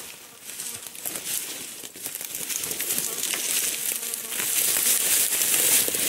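Footsteps crunching through dry leaf litter and twigs, with branches scraping and snapping as a person pushes through scrub, getting louder as he passes close by in the second half.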